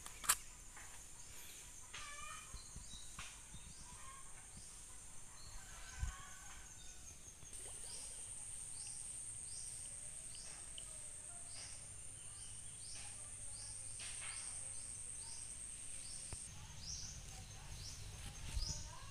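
Woodland ambience: a steady high-pitched insect drone that swells for about nine seconds in the middle, over many short repeated bird chirps.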